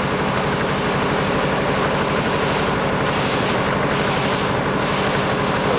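Boat engine running steadily, a constant low drone with the hiss of water and wind over it.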